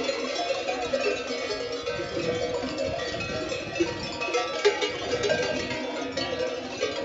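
Many sheep bells clanking and jangling together as a large flock of sheep moves along, with sheep bleating now and then.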